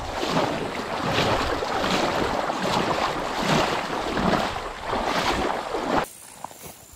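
Strong current rushing and splashing around the legs of a wader in waders on a shallow river riffle: a steady wash that swells about once a second with each step. It cuts off abruptly about six seconds in, leaving a much quieter stretch with faint taps.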